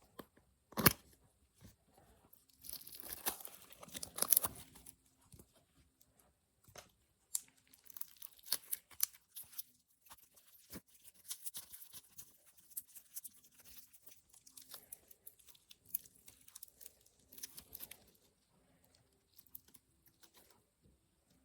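Packaging being torn open and crinkled in hand: scattered rustles and crackles, with a sharp snap about a second in and a longer tearing burst around three to four seconds in.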